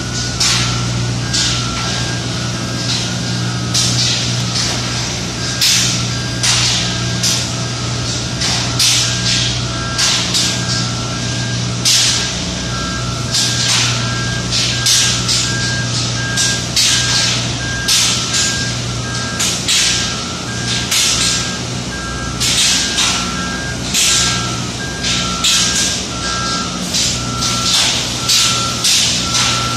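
Steady low machinery hum with a two-tone back-up alarm beeping throughout, as from the diesel boom lift or other dockside vehicle. Over it come short hissing bursts every second or so, typical of an airless paint spray gun being triggered on and off.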